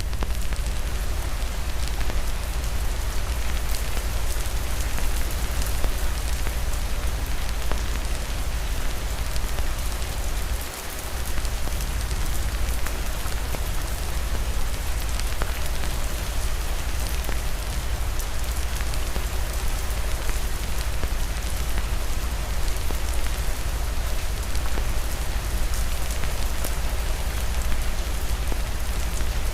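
Steady heavy rain, an even hiss with a deep low rumble underneath and fine scattered drop ticks, briefly dipping in loudness about eleven seconds in.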